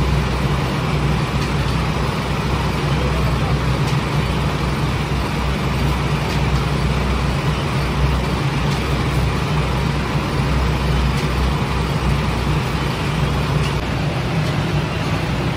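Steady drone of bakery machinery: a low hum under a broad rushing noise, with no break or change, typical of a gas-fired flatbread oven and its fans running.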